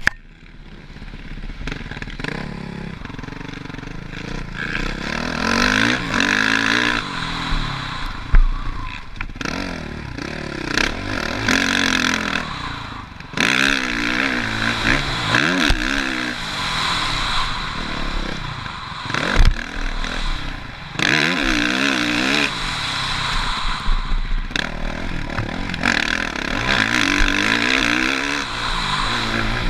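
Suzuki RM-Z450 four-stroke single-cylinder motocross bike being ridden hard, its engine revving up and falling back over and over as the throttle opens and closes, with rushing wind noise. A couple of sharp knocks stand out, about eight seconds in and again near nineteen seconds.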